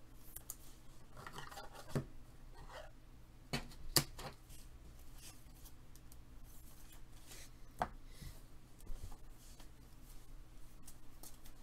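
Faint rustling and handling of trading cards and a foil pack wrapper of 2020-21 Panini Prizm basketball cards being torn open, with a few sharp clicks about 2, 4 and 8 seconds in.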